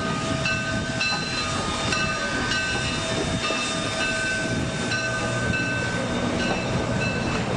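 A train running on rails: a steady rumble with short, high ringing tones that recur about twice a second.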